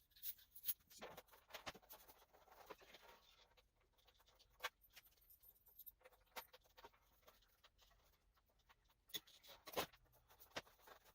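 Near silence with faint, scattered small clicks and light scraping.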